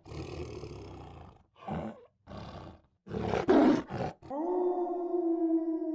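Several rough, roar-like animal calls in a row, the loudest a little past the middle, then a long steady held call or note starting near the end.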